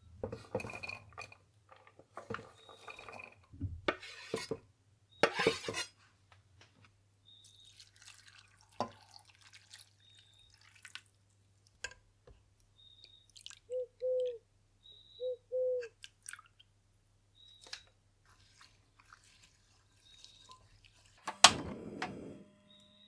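Kitchen utensils and dishes handled during cooking: scattered clinks, taps and knocks of cookware and tableware over a low steady hum, with a louder knock near the end.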